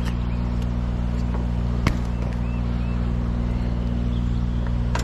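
An engine idling steadily at an even, unchanging pitch, with a single sharp click about two seconds in.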